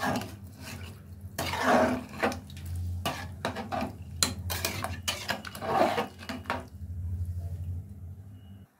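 A metal ladle stirring khichdi (rice, moong dal and vegetables in thin liquid) in an aluminium pot, with bouts of scraping and clinks against the pot's side and the liquid sloshing, over a steady low hum.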